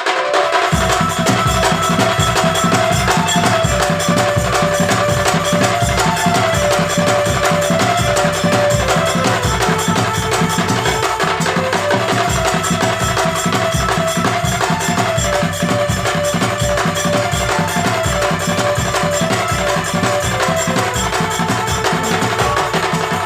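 Music: a single melody line moving in steps over a steady, busy beat of knocking percussion.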